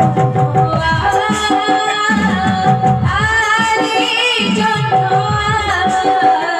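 Odia folk-theatre (ramanataka) music: a voice singing a wavering melody over a steady held note, with quick, repeated hand-drum strokes.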